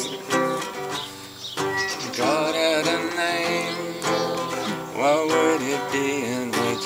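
Nylon-string classical guitar being strummed, with a man's voice singing along over parts of it.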